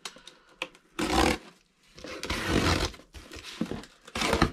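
Packing tape on a cardboard shipping box being slit with a box cutter, the blade and cardboard scraping in three noisy strokes: one about a second in, a longer one around two to three seconds, and one near the end.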